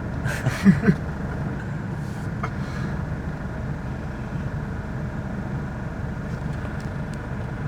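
Car engine running at idle, a steady low rumble, with a brief voice about half a second in.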